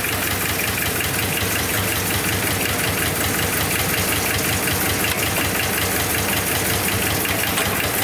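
Tractor engine idling steadily with an even beat.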